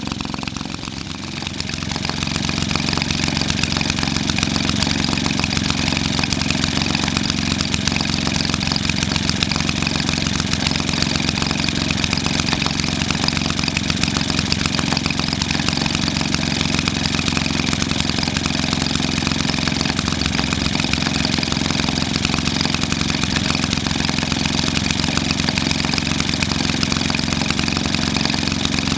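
1946 Maytag model 72D twin-cylinder two-stroke washing-machine engine running steadily at about 1,350 rpm. It dips briefly about a second in, then runs evenly.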